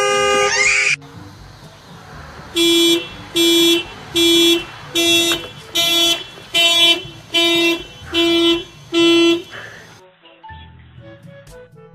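Car alarm sounding the car's horn in a regular series of nine short blasts, a little under one a second, which then stop. It opens with the tail of a loud blaring alarm tone that cuts off about a second in.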